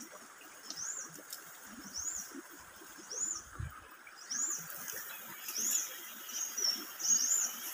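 A bird repeating a short, high chirp that rises and falls, about once a second, over faint outdoor background noise.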